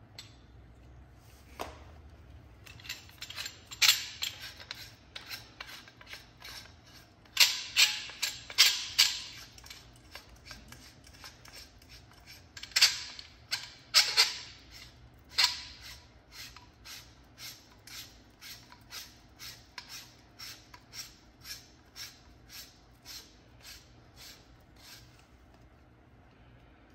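Sharp metallic clicks from hand work on an Audi R8 front shock absorber. Loud, irregular clicks come in clusters through the first half, then settle into an even run of about two clicks a second that fades near the end.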